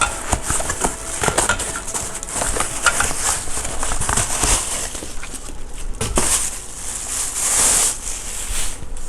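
Packaging and cardboard box being handled: continuous rustling with many small knocks and clicks as parts are lifted out and set down.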